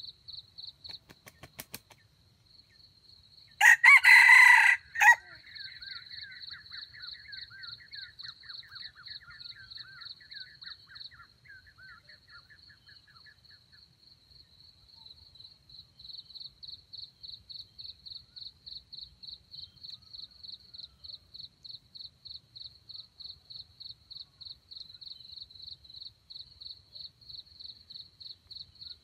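A red junglefowl rooster crows once, short and loud, about four seconds in. An insect trills in steady, even pulses underneath.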